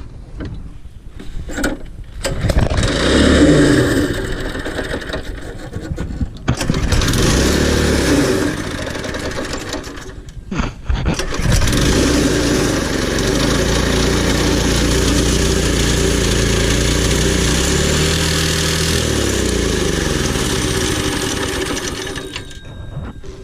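Go-kart's small gasoline engine running and revving, its pitch rising and falling. It drops away briefly twice, then runs at a steadier, higher speed with slow pitch swings, easing off near the end.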